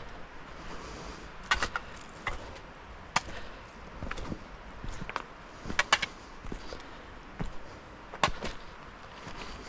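Footsteps of a walker over rough winter ground: irregular sharp crunches and snaps, a few of them loud, over a faint steady hiss.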